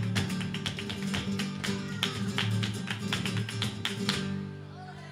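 Live flamenco music: an acoustic guitar played with sharp, percussive strokes, about three to four a second, over sustained low notes. The strokes stop and the music thins about four seconds in.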